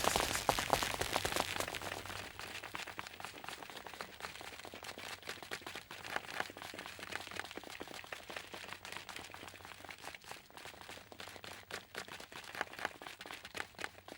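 Footsteps sound effect: a long run of quick, irregular steps, some louder than others, following a louder noisy stretch that dies away over the first two seconds.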